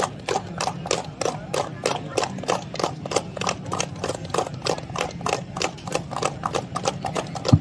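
A group of people clapping hands together in a steady, quick rhythm, about five claps a second.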